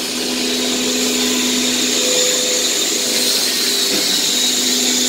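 Workshop machinery running steadily: a motor whine with a few steady hum tones and a high hiss, growing louder just as it begins.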